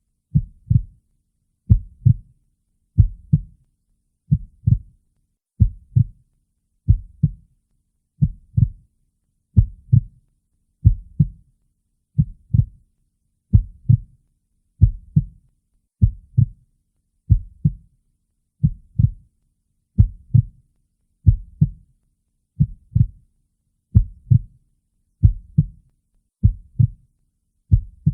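A slow, steady heartbeat: a low double thump, lub-dub, repeating evenly about every 1.3 seconds, roughly 45 beats a minute.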